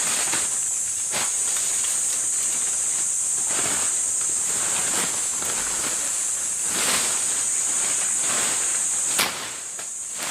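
Steady high-pitched drone of insects, with irregular rustles and crunches over it and one sharp click near the end.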